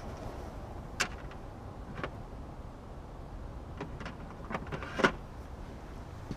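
A few scattered light clicks and knocks over a low steady background noise.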